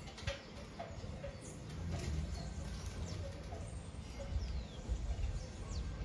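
Wind gusting over the microphone in a steady low rumble, with short bird chirps and calls scattered throughout.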